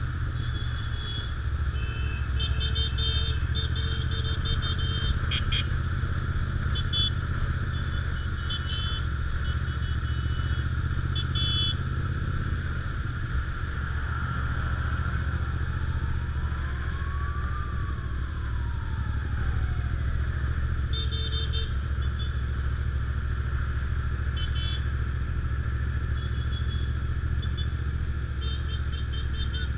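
Motorcycles riding in a column at steady speed, heard from one of the bikes: a steady low engine drone. A faint whine rises and then falls once, a little past halfway.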